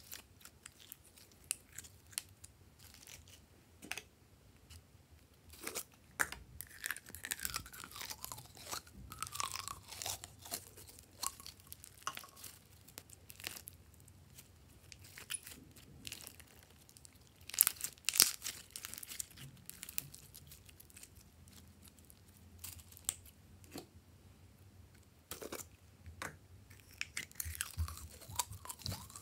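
Hands squeezing, stretching and folding glossy slime mixed with sequins and beads: a string of sticky clicks and crackles, thickest in a couple of spells.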